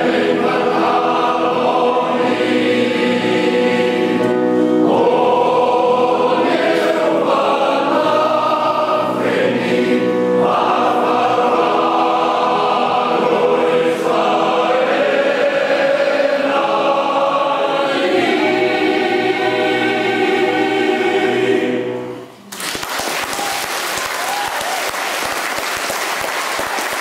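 Male voice choir singing its last phrases to the end of the song, stopping about 22 seconds in. Audience applause breaks out straight after and carries on.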